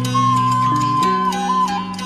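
Traditional-style instrumental music: a long held high melody line, dipping briefly in pitch near the end, over plucked strings and steady lower accompaniment notes.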